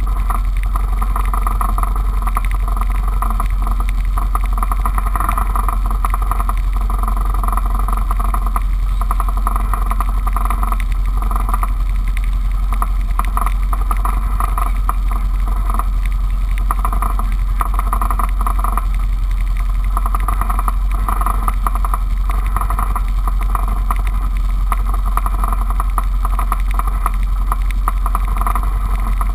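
A four-wheeler's engine idling steadily: an even, unbroken low drone.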